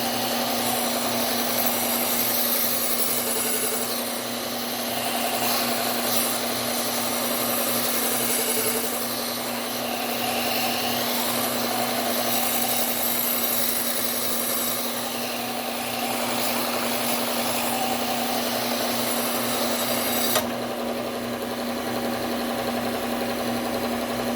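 Low-speed belt sander with a Cubitron P120 belt running with a steady motor hum while it grinds the steel of a chef's knife tip, reprofiling a broken tip. About 20 seconds in, the high grinding hiss drops away sharply and the motor keeps running.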